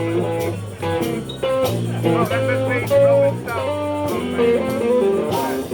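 Live blues band playing an instrumental passage: a lead line of sliding, bending notes over a steady bass line and drums.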